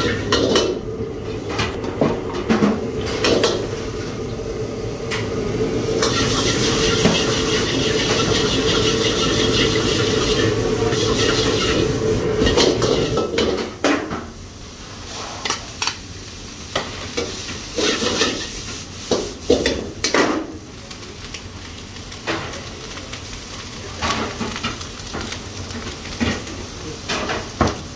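Chopped onions sizzling in a wok over a gas burner, with a long ladle stirring and clanking against the wok. A steady loud burner noise runs under the frying and drops away about halfway through. After that the sizzling is quieter, broken by sharp, scattered clanks of the ladle.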